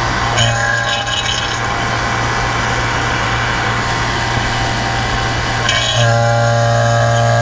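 Refrigeration vacuum pump running steadily with a low motor hum and a rush of air, evacuating the air conditioner's lines after the nitrogen pressure test and drawing moisture out of the system. It gets louder about six seconds in.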